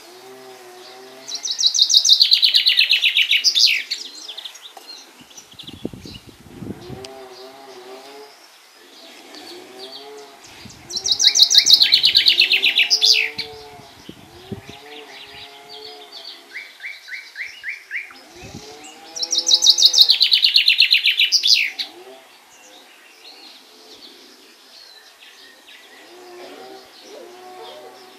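Common chaffinch singing: three loud song phrases, each a trill of about two seconds that falls in pitch and ends in a quick flourish, repeated every eight or nine seconds.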